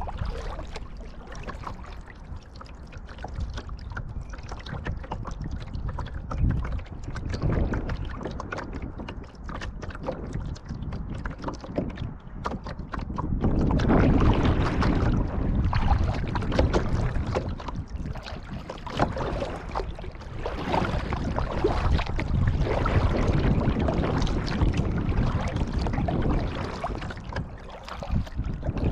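Kayak paddling heard up close: paddle blades splashing and dripping, and water lapping against the hull. The splashing grows louder about halfway through.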